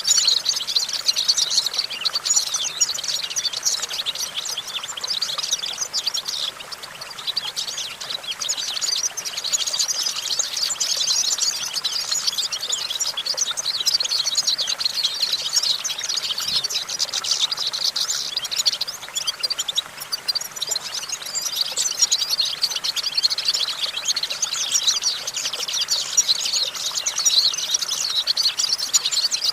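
European goldfinch singing: a fast, unbroken run of liquid twitters and trills, dipping briefly about a quarter of the way in and again about two-thirds through.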